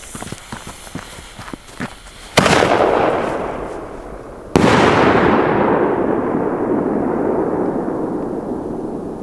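Two loud firecracker bangs about two seconds apart, each followed by a long rolling echo that fades over several seconds. Light crackling comes before the first bang.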